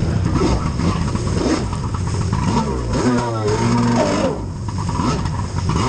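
Jet ski engine revving unevenly, its pitch rising and falling in repeated blips.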